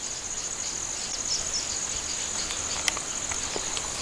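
Steady high-pitched insect chorus, a fine rapid pulsing like crickets chirring, with one sharp click just under three seconds in.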